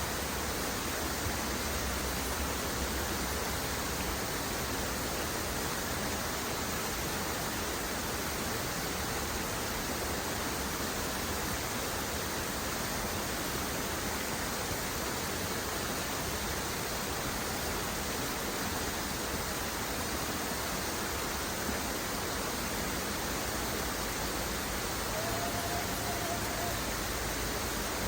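Waterfall running steadily: an even, unbroken rushing of falling water, with a faint short tone near the end.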